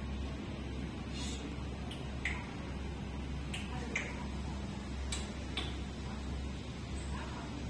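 A steady low hum with about eight short, sharp clicks scattered irregularly through it.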